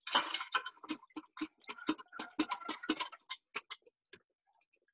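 Hand-cranked metal food mill being turned quickly to press cooked beans through its perforated disc: a fast, even run of clicks, about four or five a second, that stops nearly four seconds in.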